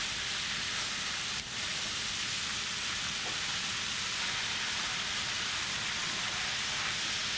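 Minced pork, dried shrimp, shiitake mushrooms and wood ear fungus stir-frying in hot oil: a steady sizzle, with a brief dip about a second and a half in.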